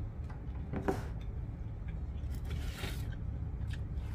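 Close-miked eating sounds: soft chewing and mouth clicks, with a brief rustle about two and a half seconds in, over a low steady hum.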